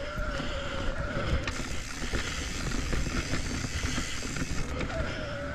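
Commencal full-suspension mountain bike rolling over a rooty dirt trail: steady rumble from tyres and wind, with scattered rattles and knocks from the bike, and a faint whine that wavers in pitch throughout.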